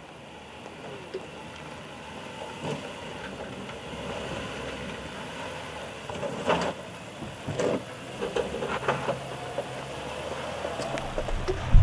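2017 Nissan Armada SUV crawling slowly over dirt mounds, its V8 engine running low under the crunch of tyres on dirt and gravel, with several sharp crackles and knocks between about six and nine seconds in.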